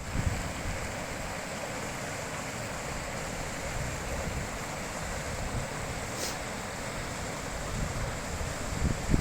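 Steady rushing of a high mountain river, with low wind rumble on the microphone rising near the end.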